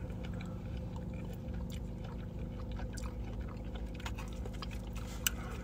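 People eating Mexican street corn from foam cups: soft chewing and faint clicks and scrapes of plastic spoons against the cups, with one sharper click about five seconds in, over a steady low hum.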